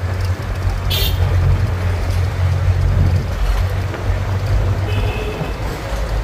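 Road traffic: a steady low engine and road rumble, with a short horn toot about a second in and another horn sounding for about half a second near the end.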